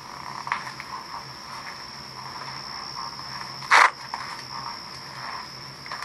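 Steady high trilling of night insects, with scattered soft rustles and clicks. One short, loud, sharp noise comes about four seconds in.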